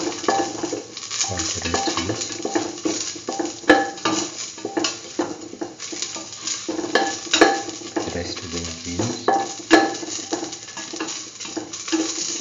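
A spatula scraping and clicking against a stainless steel pan as garlic, ginger, cumin seeds and dried red chillies are stirred, with a light sizzle of frying in oil.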